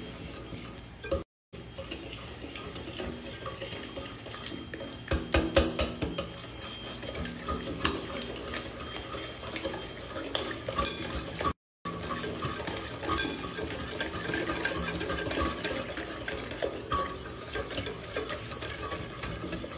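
Stainless steel wire whisk beating a wet butter, sugar and egg mixture in a glass mixing bowl: quick, continuous clinking and scraping of the wires against the bowl, loudest about five seconds in. The sound cuts out completely twice for a moment.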